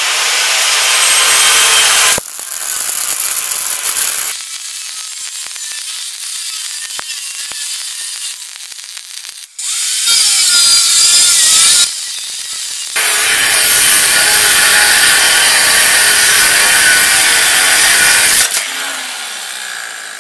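MIG (wire-feed) welding on a steel engine-mount bracket: the arc crackles and hisses in several runs of a few seconds each, with quieter gaps between them. The longest and loudest run lasts about five seconds, starting just past the middle.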